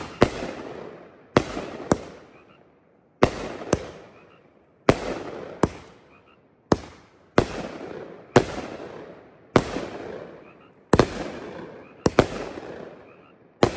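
World Class Fireworks 'Piranha' 500-gram firework cake firing shot after shot: sharp bangs about every one to one and a half seconds, often two close together, each fading out in a rolling echo.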